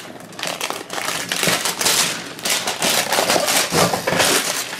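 Clear plastic shrink wrap being peeled and crumpled off a small cardboard box, crinkling and crackling in irregular bursts.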